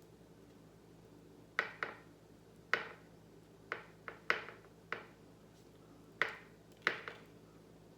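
About ten short, sharp knocks or clicks, unevenly spaced and some in quick pairs, over faint room noise.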